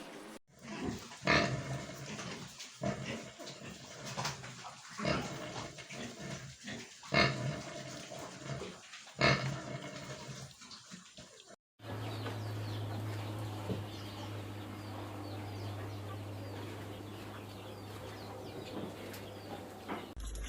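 Pigs grunting and squealing, with louder squeals about every two to three seconds. About halfway through they cut off suddenly and a steady low hum takes over, with faint animal sounds on top.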